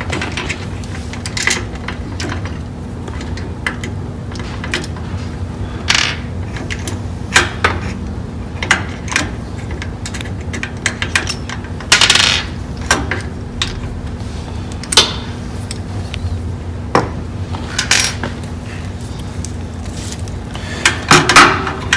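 Scattered metallic clicks and clinks of hand tools and bolts against the quilting machine's metal carriage and mounting plate as it is unbolted, over a steady low hum.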